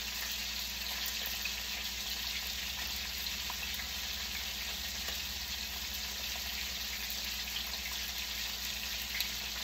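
Two steaks frying in hot oil in one pan: a steady sizzle with small scattered crackles, over a low steady hum.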